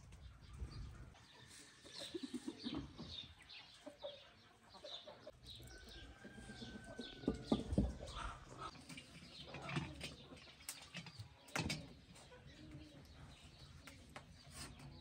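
Chickens clucking and small birds chirping, with a few sharp knocks in between.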